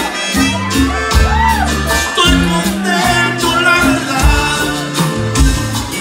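Live norteño band music: a button accordion and guitars over a stepping bass line and a steady beat, with a voice singing.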